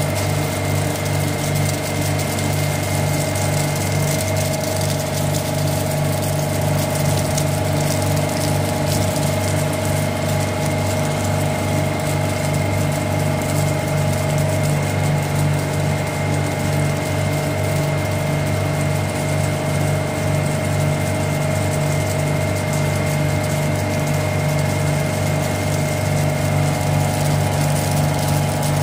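A 10-ton-per-day flake ice machine with a GEA Bock piston compressor running: an even, steady machine hum with a thin constant high tone above it.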